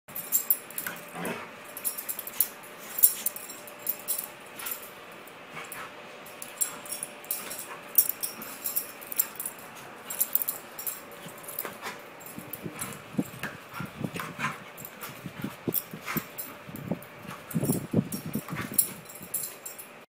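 A dog spinning after its tail on a carpet and wood floor: irregular quick clicks and scuffling throughout, with a louder cluster of scuffs near the end.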